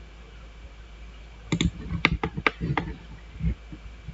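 Computer mouse and keyboard clicks: about half a dozen sharp clicks in quick succession starting about a second and a half in, then one more near the end.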